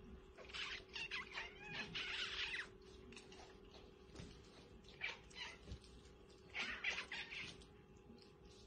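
Faint, high-pitched cat mews with bending pitch: a run of them from about half a second in to nearly three seconds, then shorter groups around five and seven seconds in.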